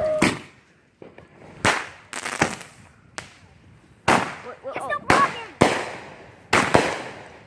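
Consumer fireworks going off: about ten sharp bangs at irregular intervals, each trailing away in a short fading echo.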